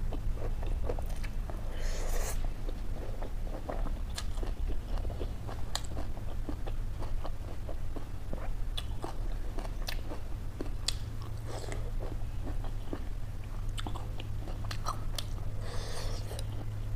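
A person chewing and crunching a mouthful of food close to the microphone, with raw leafy greens among it, and a dense run of small wet mouth clicks and smacks.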